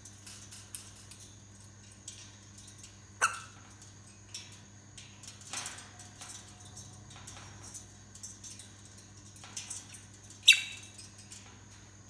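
African grey parrots in their cage making scattered soft clicks and squeaks, with two short, sharp louder calls, one about three seconds in and a louder one near the end.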